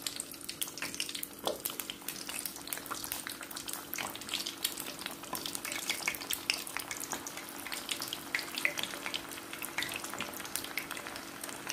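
Prawn 65 pieces deep-frying in hot refined oil, sizzling with a dense, continuous crackle of small pops as the coated prawns hit the oil.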